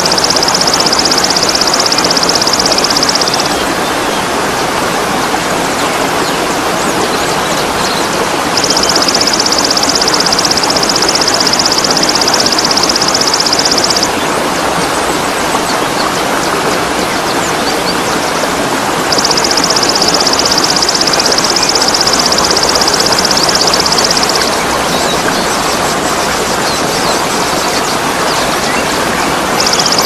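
Waterfall pouring steadily, a continuous rushing noise. Over it a loud, high buzzing trill sounds for four to five seconds at a time and comes back about every ten seconds.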